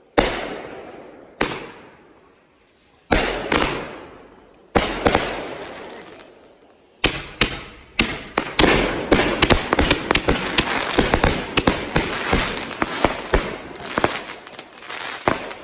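Consumer fireworks going off. Several single loud bangs come a second or two apart, each trailing off in a fading rumble. From about seven seconds in, a fast volley of many cracks and pops follows and runs on until near the end.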